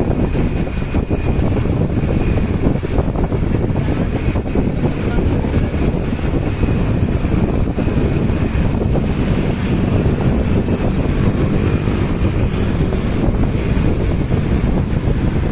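Tour bus diesel engine and loud exhaust running steadily while under way, with wind buffeting the microphone.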